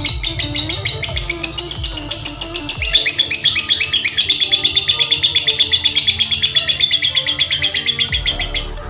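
Lovebird singing a long, unbroken run of rapid, evenly repeated chirps, the kind of song taken as a sign the bird can become 'konslet' (sing in continuous runs); it breaks off near the end. Background music plays underneath.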